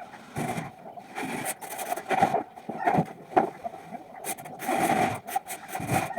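Irregular scraping and knocking of wood being worked by hand, in uneven strokes of different lengths with a few sharper knocks.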